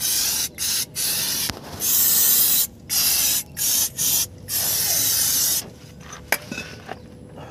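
Aerosol spray can hissing in a run of about eight short and longer bursts as it is sprayed over a drum brake's shoes, springs and wheel cylinder. The spraying stops about five and a half seconds in, followed by a few light clicks.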